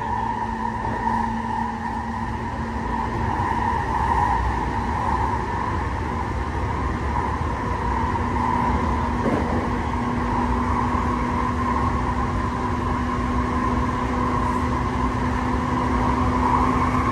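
Interior running noise of a JR East E233-7000 series electric train travelling at steady speed through a tunnel: a constant roar of wheels on rail with a low rumble and a faint steady hum.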